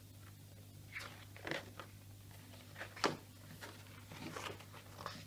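Pages of a picture book being handled and turned: several short paper rustles and crinkles, with a steady low hum beneath.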